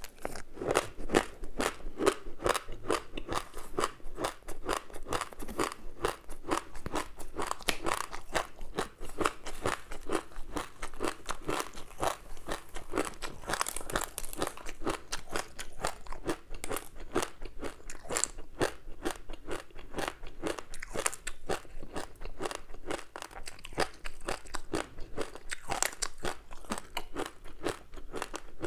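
Close-miked chewing of a crispy seaweed-wrapped rice snack: a dense, continuous run of rapid crunches and crackles.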